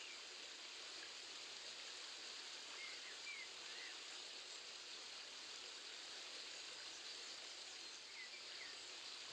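Faint, steady rushing of a mountain stream, with a few short bird chirps about three seconds in and again near the end.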